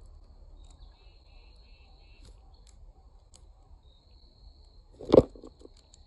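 Outdoor ambience with a faint, steady, high insect trill that breaks off and starts again, and a short run of four quick chirps about a second in. About five seconds in comes a sharp knock on the hanging platform feeder, followed by a few smaller taps.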